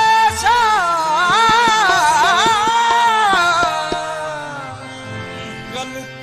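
Qawwali singing: a male voice holds a note, then runs through a long wavering melismatic phrase over a steady harmonium drone, with sharp percussion strokes beneath. The voice fades about four seconds in.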